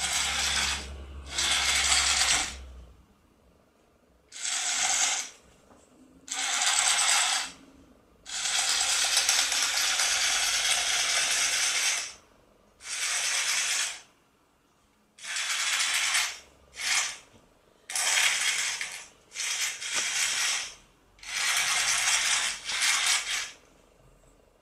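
Toy robot spider's small motor and gearbox whirring in about a dozen stop-start bursts, most about a second long and one running about four seconds.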